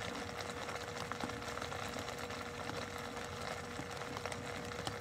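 Steady outdoor background noise with a faint, steady hum-like tone and a few faint ticks; no distinct event stands out.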